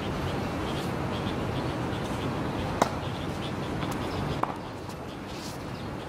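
Tennis ball struck by rackets and bouncing on a hard court: a few sharp pops, the loudest about three seconds in, two fainter ones about a second later. Under them is a steady outdoor background with faint, quick chirping.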